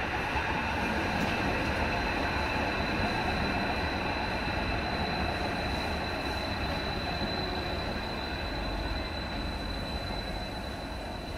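Stadler Class 555 Tyne & Wear Metro train running past, a steady rush of wheels on rail with a thin, steady high-pitched whine over it, easing off slowly as the last carriage goes by.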